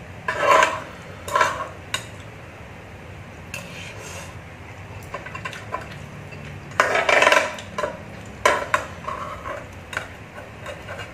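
Metal spoon and chopsticks stirring and scraping noodles in a nonstick electric pan, with several short louder bursts, the longest about seven seconds in.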